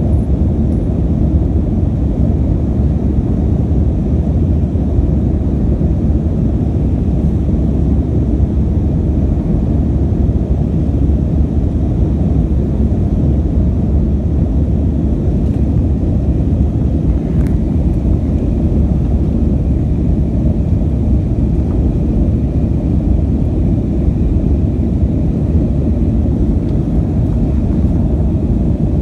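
Steady low rumble of an Airbus A320's jet engines and rushing airflow, heard inside the passenger cabin as the airliner climbs after takeoff.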